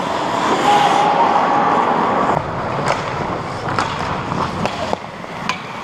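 Ice hockey game sound on the rink: skate blades scraping and hissing on the ice, with several sharp clacks of sticks and puck in the second half.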